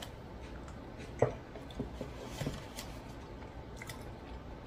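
A person chewing a mouthful of cheese fries: soft, wet mouth sounds, with one sharp click about a second in and a few fainter ones after.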